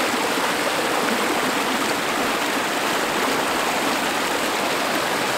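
Stream water rushing and churning over rocks in white water, a steady even rush.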